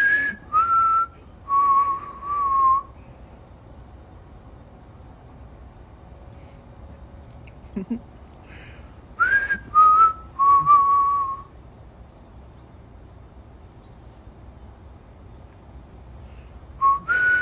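A person whistling a short phrase of three falling notes, the last one held and wavering, repeated about nine seconds later. Faint high bird chirps come in the gaps between.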